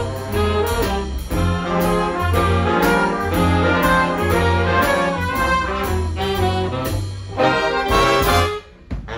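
A live big band playing jazz, with trombones and trumpets leading over saxophones, drums, bass and piano. The playing breaks off sharply near the end.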